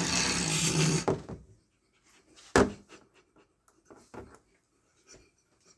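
A man's heavy, breathy exhale for about a second, then one sharp click about two and a half seconds in and a few faint ticks.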